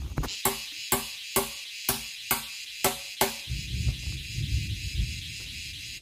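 Insects chirring steadily, with a run of seven sharp, evenly spaced knocks, about two a second, over the first three and a half seconds, and a low rumble underneath.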